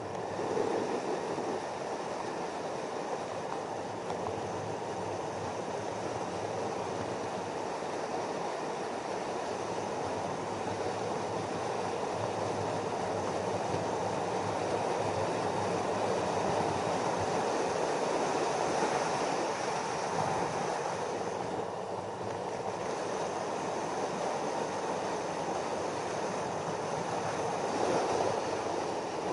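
Street luge's urethane wheels rolling over asphalt at around 80 to 90 km/h, a steady rolling noise mixed with rushing wind on the microphone. It grows a little louder midway as the luge speeds up and dips briefly about three-quarters through.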